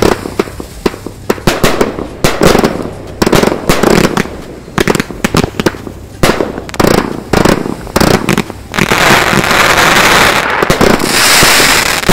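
Dia de los Muertos 100-shot XL aerial finale set firing: an irregular rapid string of shots and sharp bursting reports in clusters, with a denser continuous crackle from about nine seconds in.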